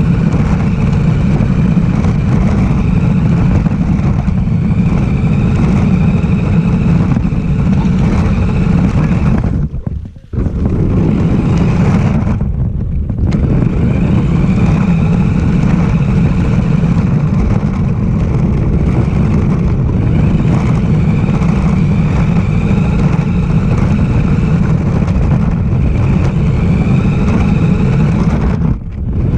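RC car driving, its motor's whine wavering up and down in pitch as it speeds up and slows, over a heavy low rumble. The sound cuts out briefly about ten seconds in, again about three seconds later, and near the end.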